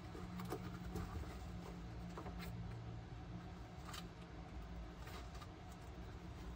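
A feeder rat's claws scratching and scrabbling lightly over paper towel and the enclosure's wooden walls: a few faint scratches and clicks over a steady low hum from a fan.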